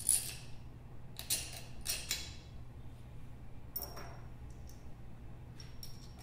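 Several scattered light metallic clicks and taps of steel bolts being set by hand into a gearbox hanger on a cast gearbox housing, over a faint steady low hum.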